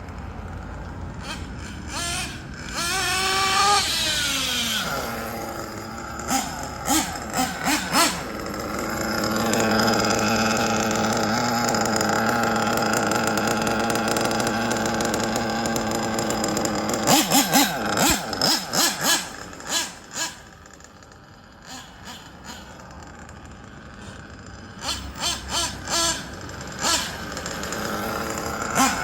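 Small nitro engine of a Kyosho Inferno NEO ST 3.0 RC truggy running at high revs, rising in pitch as it accelerates and holding a steady buzz for several seconds at a time, then easing off. Bursts of sharp clicks and knocks come in clusters between the runs.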